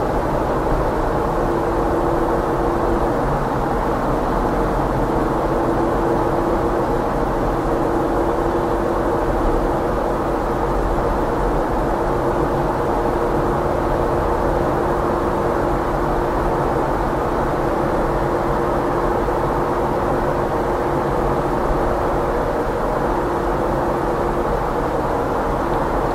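Steady road and engine noise of a car driving at an even pace, a low rumbling hum with a faint steady tone over it and no sudden events.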